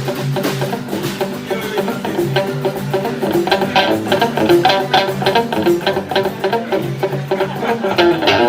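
Live band music: guitar playing over bass and drums.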